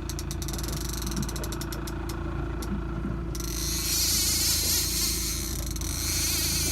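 Fishing reel drag clicking rapidly, then running into a continuous buzz about three seconds in as a hooked Chinook salmon takes line, over the steady hum of the trolling boat's engine.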